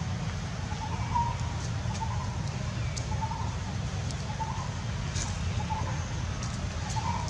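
A bird calling over and over with short calls, about one a second, over a steady low rumble.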